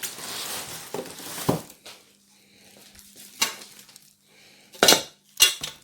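Exercise-bike parts and their packaging being handled and taken out of a cardboard box: rustling for the first second and a half, then a few sharp knocks and clatters, the loudest two near the end.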